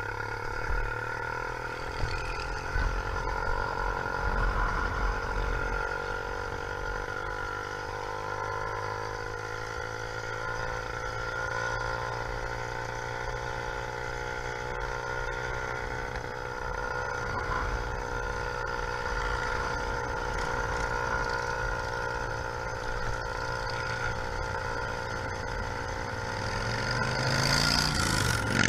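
YD100 two-stroke engine with a window piston running steadily on a motorized bicycle, its pitch rising near the end as it revs up.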